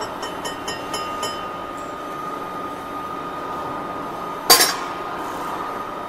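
Light metallic clinks, then one loud sharp metal clank about four and a half seconds in, as the boring tool is slid into the steel roller's bore on a boring lathe. A steady high machine whine runs underneath.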